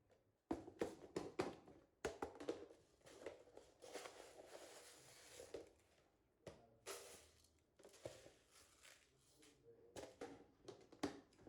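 Faint scattered clicks and knocks of objects being handled, with a stretch of rustling around the middle.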